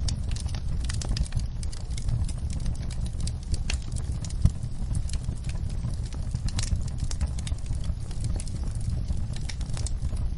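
Wood fire in a fireplace crackling: a steady run of irregular sharp pops and snaps over a low rumble, with one louder pop about four and a half seconds in.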